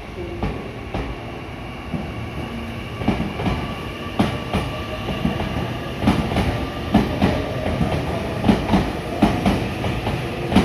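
Meitetsu 9500 series electric commuter train pulling away from a station platform. Its wheels clack over the rail joints in quick pairs that come louder and more often as it gathers speed, over a steady whine.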